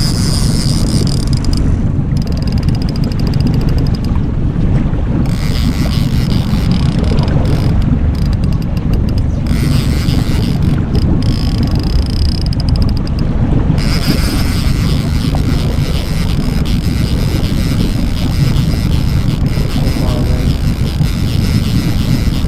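Fishing boat's motor running steadily while trolling, with wind buffeting the microphone as a constant low rumble.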